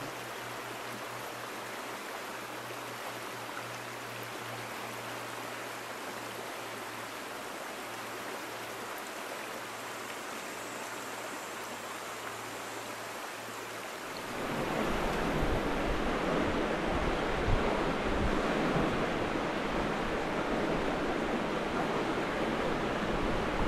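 Steady rush of flowing stream water. About fourteen seconds in it becomes clearly louder and fuller, with a low rumble.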